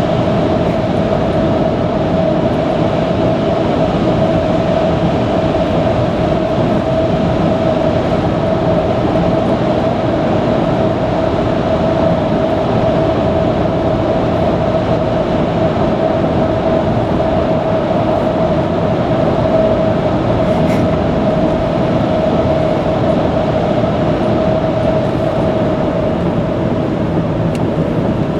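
Steady tyre and engine noise inside a car cruising at expressway speed, with a constant hum and no changes.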